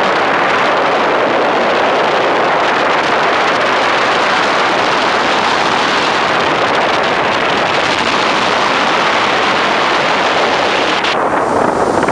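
Steady rushing of wind and water from a speedboat under way, with no clear engine note standing out. The hiss thins briefly near the end.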